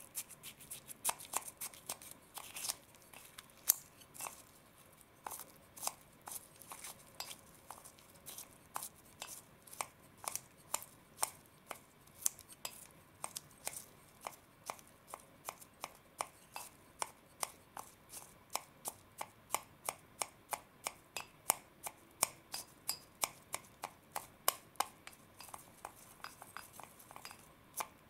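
Wooden chopsticks stirring slime dough mix in a clear bowl, clicking against its sides and bottom about two to three times a second.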